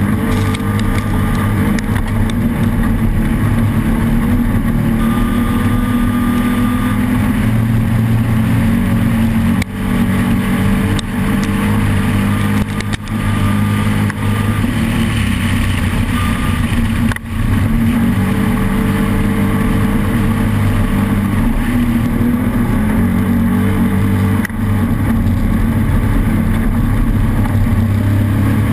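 Off-road race vehicle's engine running hard and steady, heard onboard with rattle and wind noise, briefly easing off a few times before pulling again.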